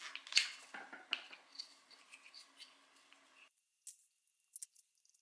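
Worn Torx screwdriver bit working screws out of the air pump's housing: scattered small clicks and scrapes of metal on metal, the sharpest about half a second and a second in, growing sparse near the end.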